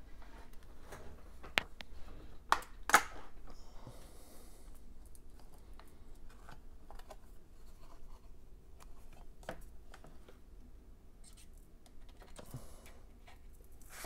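Hands handling a USB-C power cable and a USB meter at an opened laptop: scattered sharp clicks and small knocks with light scraping and rubbing, the loudest click about three seconds in.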